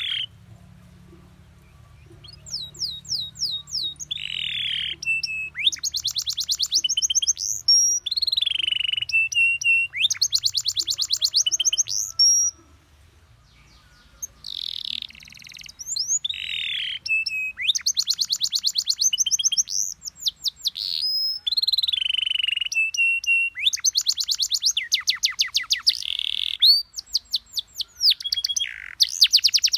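Canary singing a long song of fast trills and rapidly repeated notes, broken by falling slurs. There is a pause of about a second and a half near the middle and a shorter one later.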